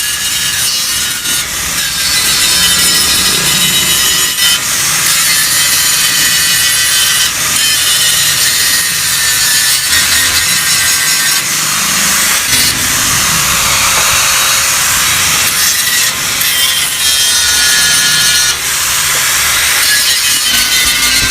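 Power tool working the steel of a new Yamaha RX-King exhaust muffler as it is opened up to make it louder: a loud, continuous motor whine over a harsh metal hiss, shifting every second or two as the tool bites.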